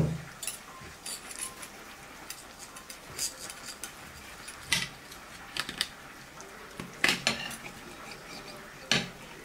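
Knife and fork clinking and scraping against a metal serving plate while cutting into a stuffed pepper, as irregular sharp clinks with a few louder ones.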